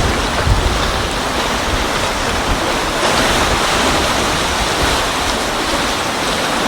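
Steady rush of sea surf on a beach, with wind buffeting the microphone in low gusts.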